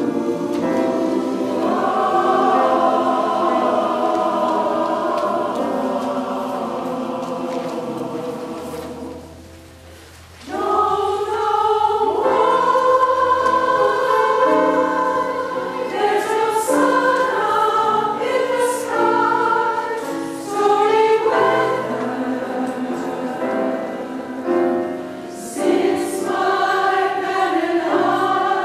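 Mixed choir singing in harmony with long held chords. About nine seconds in the singing fades almost away, then the full choir comes back in strongly a second or so later.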